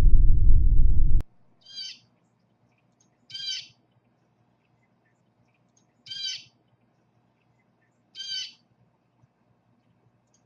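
A loud low rumble for about the first second, then four short bird calls, each a brief pitched note, spaced about two seconds apart.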